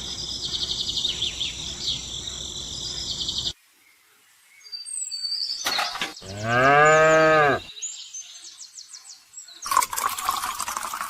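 A cow moos once, about six seconds in: a single call about a second and a half long that rises and then falls in pitch. Before it, a steady background of high chirping cuts off abruptly.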